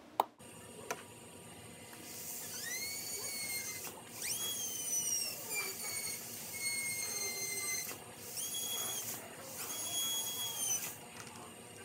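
Dental high-speed handpiece whining in four bursts as it drills a practice tooth on a manikin. The first burst rises in pitch as it spins up and then holds, and the second starts higher and sags in pitch as it cuts.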